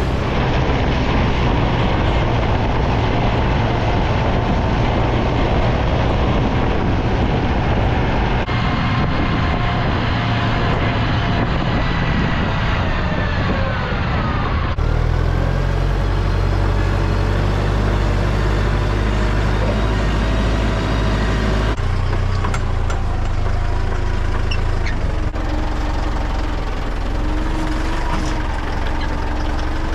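Diesel engine of farm machinery running steadily, close and loud. The engine sound changes abruptly about halfway through and again a few seconds later.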